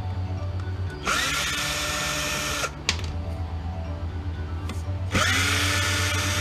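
Power drill backing screws out of a windshield wiper motor housing, run twice for about a second and a half each, whining up in pitch as it starts.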